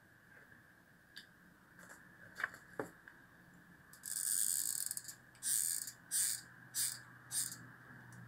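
A few light clicks of small parts being handled, then a hot glue gun's trigger being squeezed as its feed mechanism pushes the glue stick through: one long scratchy burst about four seconds in, then four short ones in quick succession.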